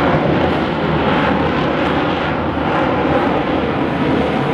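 USMC F-35B Lightning II hovering in short-takeoff/vertical-landing mode, its F135 jet engine and shaft-driven lift fan running at high power: loud, steady jet noise.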